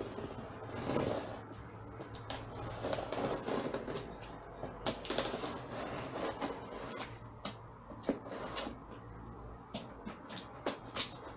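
A small knife blade slitting the packing tape along the seam of a cardboard box: scraping, slicing strokes broken by irregular clicks and taps of the blade on the cardboard.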